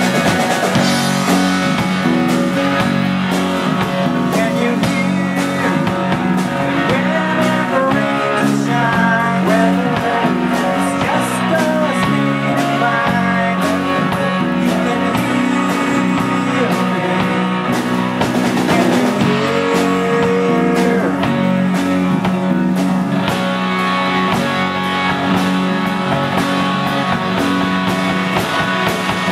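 Live rock band playing: electric and acoustic guitars, bass and drums, with singing at the mic.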